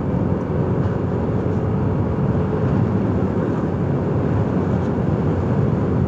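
Motorcycle riding at a steady speed: the engine runs evenly under a constant rush of wind noise on the microphone.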